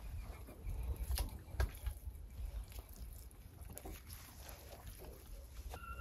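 Soft wet handling sounds and a few light clicks as gloved hands work a cleaned lamb's stomach over a foil-lined tray, under a steady low rumble. A short pitched call, like a goose or chicken, starts near the end.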